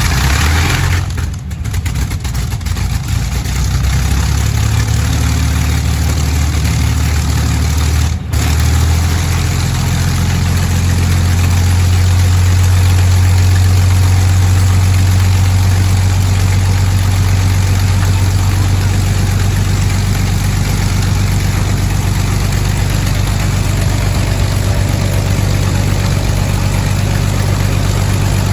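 De Havilland Mosquito's Rolls-Royce Merlin V12 piston engines starting and running. The sound comes in loud right at the start and runs unevenly with a brief dip about eight seconds in, then settles into a steady idle.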